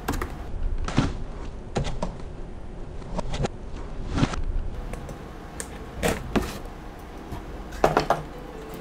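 Utility knife cutting open a cardboard shipping box, with the box being handled: a string of short, irregular scratches and knocks.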